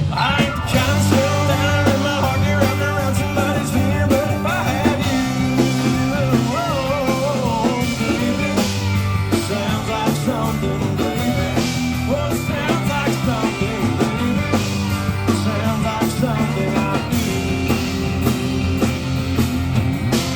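A live country band playing loud amplified music, with a lead line bending in pitch over steady bass and drums.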